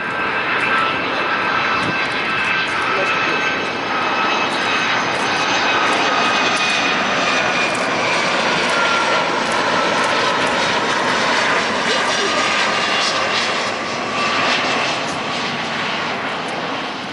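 A Boeing 757-300's two Rolls-Royce RB211-535E4B turbofans on landing approach: a steady jet rumble with several high whining tones that slowly fall in pitch as the airliner passes. It is loudest in the middle and fades near the end.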